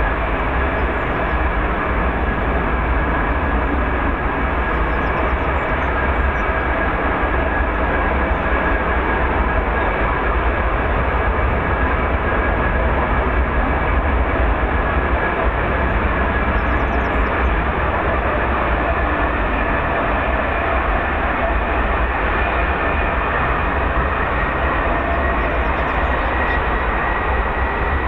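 F-35B's Pratt & Whitney F135 jet engine and Rolls-Royce LiftFan running steadily on a ground run, lift fan door open: a constant rushing jet noise with a high whine held throughout. One whine tone creeps slightly higher in the last several seconds.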